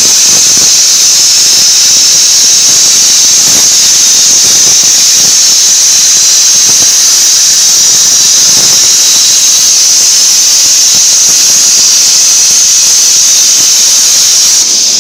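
CNC plasma torch cutting metal plate: a loud, steady, high-pitched hiss of the plasma arc, which cuts off just before the end as the cut finishes.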